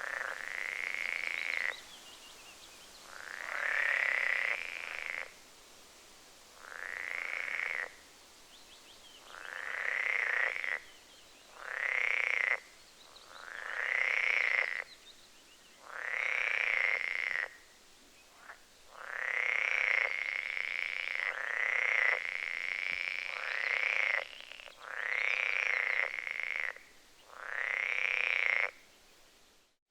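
Frog croaking again and again: about a dozen rough, buzzing calls, each lasting one to two seconds with short gaps between them. The calls cut off abruptly near the end.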